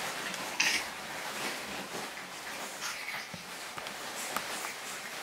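Shredded paper bedding rustling as pug puppies scuffle and play through it, with a short, sharp high-pitched sound about half a second in.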